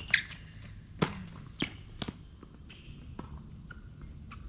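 Steady high-pitched insect drone, with a tennis ball bouncing a few times on the hard court before the serve, sharp knocks about half a second apart.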